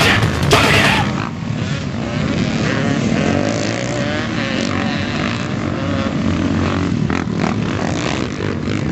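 Music cuts off about a second in. It gives way to off-road racing engines: several quads and dirt bikes running on the track, their revs rising and falling as they pass.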